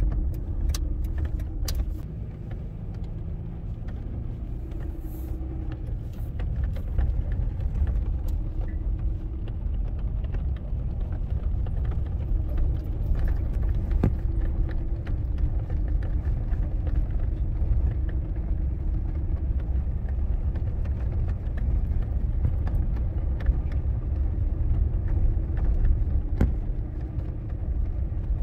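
Car driving slowly, heard from inside the cabin: a steady low rumble of engine and tyres on brick paving, with scattered light clicks and rattles.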